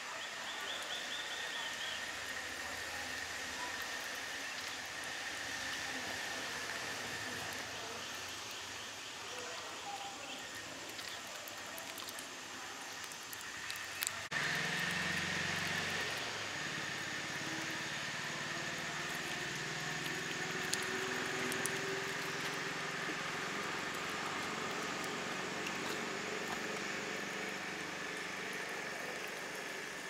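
Steady outdoor background noise with a thin, continuous high tone. A sharp click comes about halfway through, after which the background gets louder and a low hum joins it.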